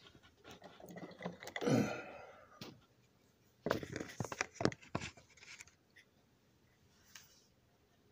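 Handling noise close to the microphone: a breathy rustle that swells and fades, then a quick cluster of clicks and knocks about four seconds in, and a few faint taps after.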